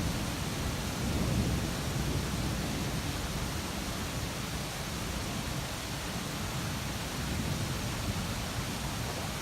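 Thunderstorm: a steady hiss of rain with a low rumble of thunder that fades over the first couple of seconds.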